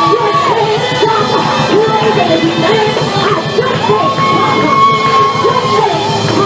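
Church praise break: loud, fast music with a driving beat, and the congregation shouting and yelling over it.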